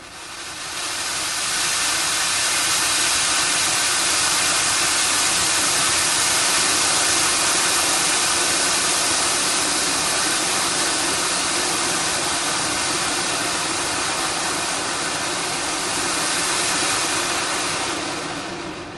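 Fountain firework burning: a steady, loud hissing spray of sparks that builds up over the first couple of seconds, holds, and dies away near the end.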